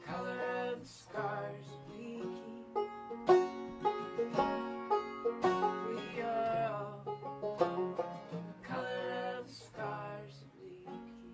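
Banjo and acoustic guitar played together as a folk duo, with a man and a woman singing; the last notes ring out and fade near the end as the song finishes.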